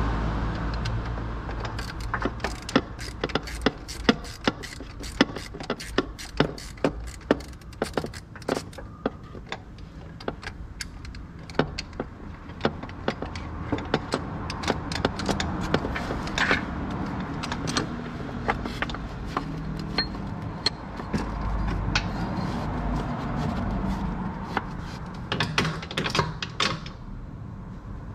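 Many sharp, irregular metallic clicks and clinks of hand tools at work, densest in the first third and again near the end, over a low steady rumble.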